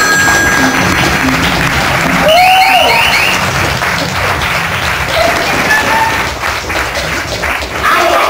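Theatre audience applauding, with music playing underneath.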